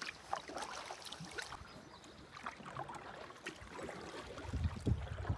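Canoe paddling: soft splashes and drips of water from the paddle strokes. Gusts of wind buffet the microphone near the end.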